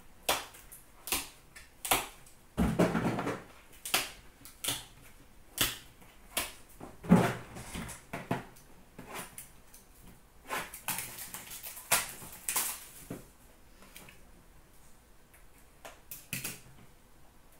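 A hockey card box and its packs being handled by hand: a scattered run of sharp taps and knocks, with short bursts of rustling cardboard and wrapper about two to three seconds in, around seven seconds and again around eleven to twelve seconds.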